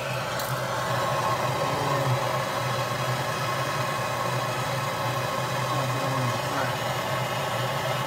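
Small propane hand torch burning with a steady rushing flame noise, loud enough to drown out speech, as it heats a plastic welding rod. A single sharp click about half a second in.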